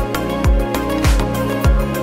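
Background music with a steady beat: sustained instrumental tones over a deep drum hit roughly every half-second.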